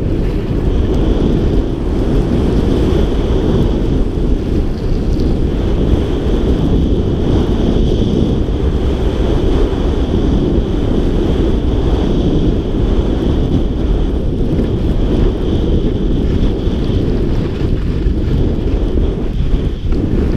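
Wind buffeting a GoPro's microphone as a skier runs fast down a groomed slope: a loud, steady low rush, with a steady higher hiss of skis gliding on the snow that fades out near the end.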